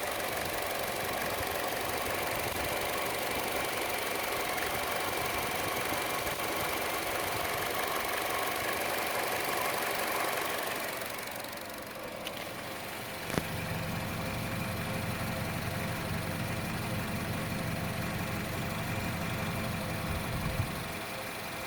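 Chevrolet Cruze engine idling with a ticking noise, louder than the normal engine tick and most noticeable on the belt side; the owner does not know its cause. About halfway through the sound changes: a sharp click, then a steady low drone dominates, with another click near the end.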